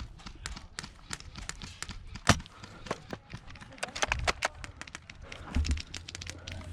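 Footsteps of a player running, irregular and fast, with gear clattering. Scattered sharp clicks run through it, with one loud crack about two seconds in.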